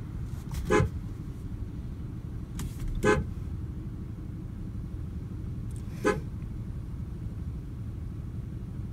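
Three short car-horn toots a few seconds apart, over the steady low rumble of vehicles idling at a traffic light.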